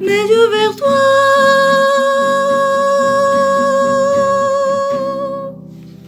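The final line of a French hymn sung over acoustic guitar. The voice bends through the last words, then holds one long steady note for about four and a half seconds over fingerpicked chords. The voice stops about five and a half seconds in, leaving the guitar fading softly.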